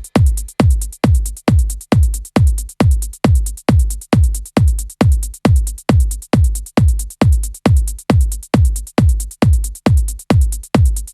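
Trance track playing a bare four-on-the-floor kick drum, about two and a half beats a second, each kick a deep beat whose pitch falls quickly.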